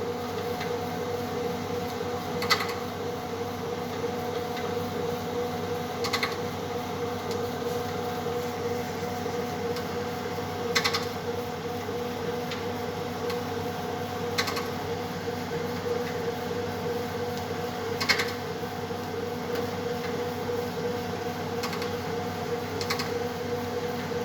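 Sigma dough mixer running with a steady motor and gear hum, with a sharp knock about every four seconds. The knock points to a fault in the mixer's drive.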